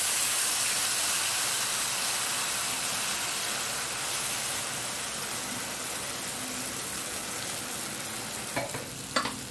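Wet green mint-and-cashew puree sizzling in hot oil in a stainless steel tri-ply kadai, a dense hiss that slowly dies down as it is stirred with a silicone spatula.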